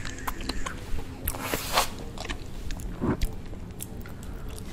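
Close-miked biting and chewing of a frosted cupcake: soft, moist mouth sounds with scattered small clicks and smacks.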